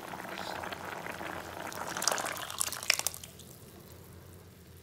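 Sambar at a rolling boil in a pan, bubbling and popping, with a few wet plops near three seconds in as mashed toor dal goes in. The bubbling then dies away.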